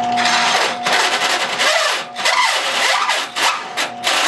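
A Milwaukee 1-3/8 inch cobalt hole saw grinding into quarter-inch steel plate, turned by a 1/3 horsepower Harbor Freight benchtop drill press. It makes a rough, rasping scrape that swells and eases about twice a second as the teeth bite. The drill press is underpowered for the cut.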